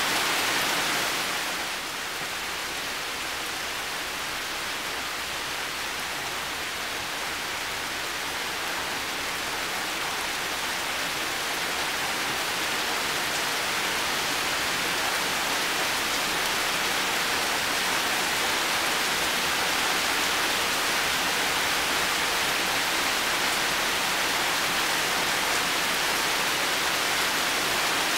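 Heavy rain falling steadily, a dense even hiss with no separate drops standing out. It dips a little about a second in, then slowly builds back up.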